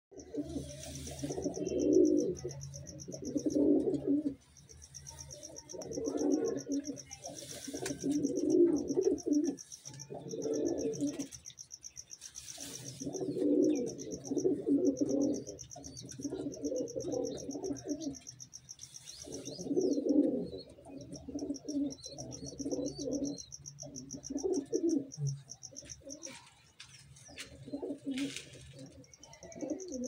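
Domestic pigeons cooing in repeated phrases of a second or two, one after another with short pauses: the cooing of a male pigeon strutting in courtship display. A steady, high, rapidly pulsing trill runs behind it for much of the time.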